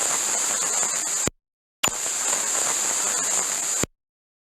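Radio-frequency interference static in two bursts of about two seconds each. Each starts with a sharp click and cuts off suddenly, with a strong high-pitched hiss over the crackle.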